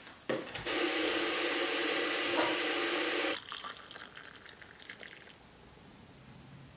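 Water pouring into a vessel, loud and steady for about three seconds, then dropping to a thinner trickle with a few small clinks.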